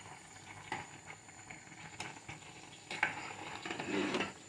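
Rice being stirred in a pot of water for parboiling, a faint wet stirring with a few light clicks and a louder stretch about three seconds in.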